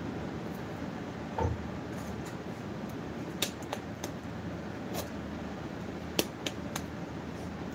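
A steady hum under a handful of light, sharp clicks and taps from hands handling wax strips on a bare arm during waxing.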